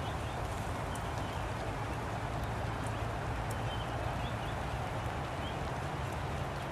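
Steady rain pattering on umbrellas and a tent canopy, an even hiss with a few faint drip clicks, over a low steady hum.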